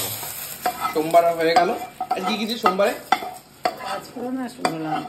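Hot oil tempering poured into a steel pot of simmering masoor dal, sizzling and hissing loudest at the start and then dying down, while a ladle stirs it in.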